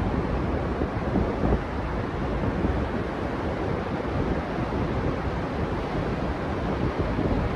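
Ocean surf washing steadily on a beach, with wind buffeting the microphone.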